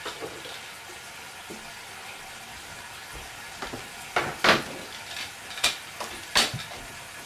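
Food sizzling steadily in a pan, with several sharp knocks and clatters from elsewhere in the kitchen, the loudest between about four and six and a half seconds in.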